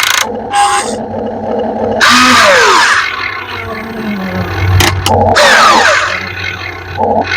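RC model excavator working, its motors running under a steady hum. Several loud surges of whining and hissing come through, some of them falling in pitch as the motors slow.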